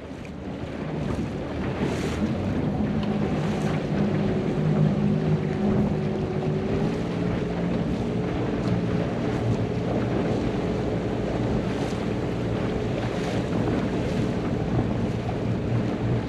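Outboard motor of an inflatable coach boat running steadily under way, its note shifting about seven seconds in, with wind buffeting the microphone and water rushing past the hull.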